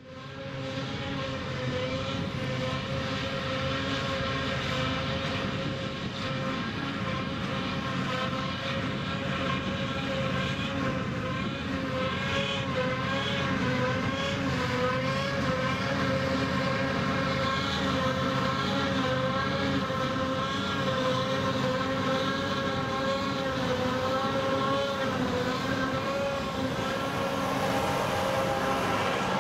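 John Deere 7450i self-propelled forage harvester running under load while chopping field grass, with a tractor and trailer driving alongside it. The result is a steady, loud machine drone whose whine wavers slightly in pitch. It fades in over the first second.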